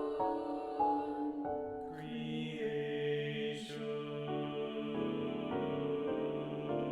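Slow, ethereal SATB choral music with piano: sustained chords that shift every second or so, the texture filling out about two seconds in.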